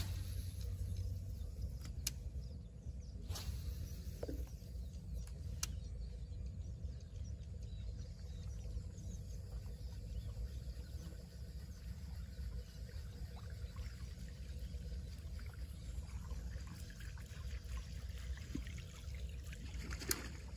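Pond-side ambience: a steady low rumble with faint trickling water, and a few sharp clicks about two, three and five and a half seconds in and again near the end.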